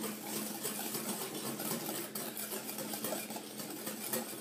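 Wire whisk beating egg white and sugar in a glass bowl: steady, fast whisking, the wires scraping and ticking against the glass.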